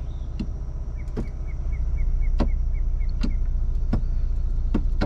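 A 2021 Ford Bronco idling in neutral, heard from inside the cabin, while its transfer case is shifted from four-low to four-high. A steady low engine hum runs under scattered sharp clicks, with a quick run of short high beeps, about four a second, from about one second in to past three seconds.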